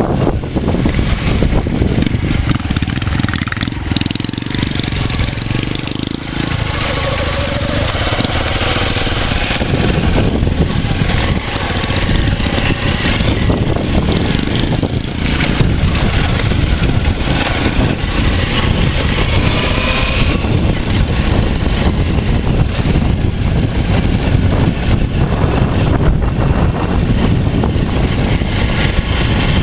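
Motorcycle engine running steadily while riding along a trail, with wind buffeting the microphone.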